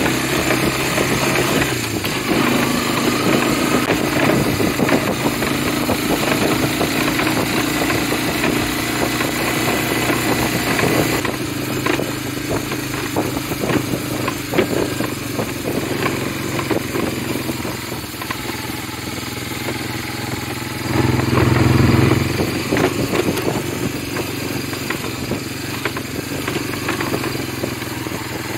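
Engine of a farm utility vehicle running steadily as it drives across rough pasture. Loose knocks and rattles, likely gear in the cargo bed jolting over bumps, come through the middle. The engine pulls harder for a moment a little past two-thirds of the way through.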